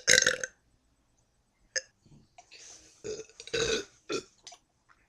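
Deliberate, forced burps from a girl: a short loud burp right at the start and a longer one about three and a half seconds in.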